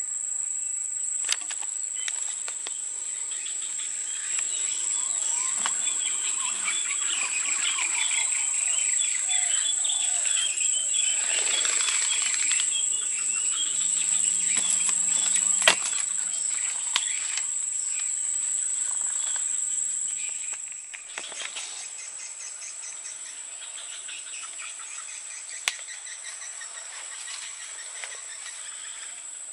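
Insects droning on one steady high tone, with birds chattering over it. One sharp click about 16 seconds in. The chatter falls away after about 20 seconds, leaving mostly the insect drone.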